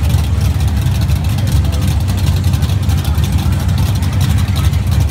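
Chevrolet S10 pickup's drag-race engine idling loudly and steadily at the starting line: a low rumble that holds at one level with no revving.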